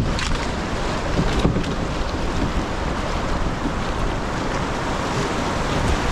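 Whitewater rapids rushing around a moving canoe, a steady loud wash of water, with wind buffeting the microphone.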